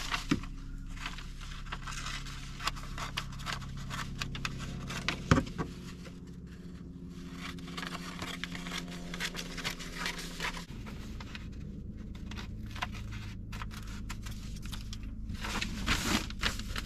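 Scissors snipping through thin flip chart paper, with the large sheet rustling and crinkling as it is handled and shifted. A low steady hum lies underneath and eases off about two-thirds of the way through.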